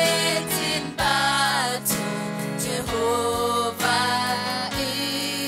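Gospel worship song performed live: women's voices singing together over electronic keyboard chords, holding notes and sliding between them.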